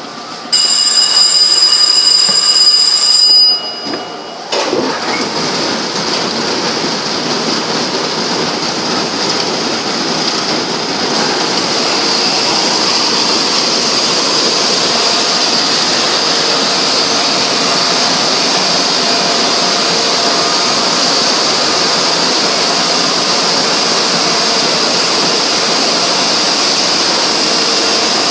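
A loud, high steady tone with several pitches for about three seconds, then, about four and a half seconds in, the 1985 Heidelberg Speedmaster 102 SP six-colour sheetfed offset press running with a steady, continuous mechanical whir.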